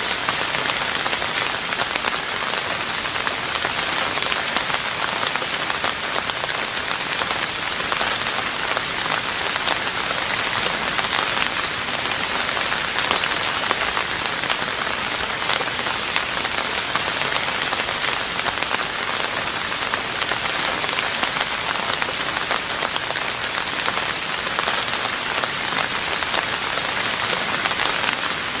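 Steady rain falling on a roof: an even hiss full of small individual drop hits, unchanging in strength.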